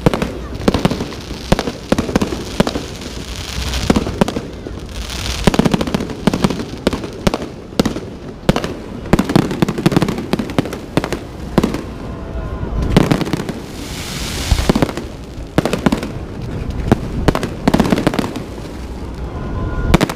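Fireworks display: many aerial shells bursting in quick succession, sharp bangs overlapping one another, with stretches of crackling.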